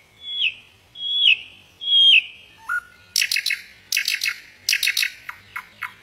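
Common nightingale singing: three loud, drawn-out whistles, each sliding down in pitch at its end, then a short lower note and a fast run of sharp, clipped notes in quick repeated groups.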